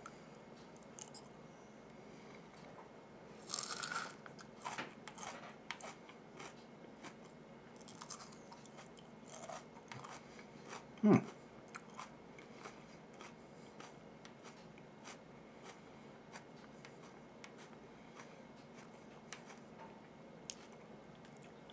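A person biting and chewing a fresh chili pepper pod: a crunch about four seconds in, then soft wet chewing clicks. A short vocal sound from the eater stands out about eleven seconds in.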